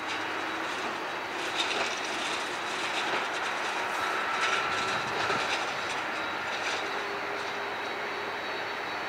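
Airbus A321 jet engines at idle as the airliner taxis: a steady whine and hum with a few faint high tones.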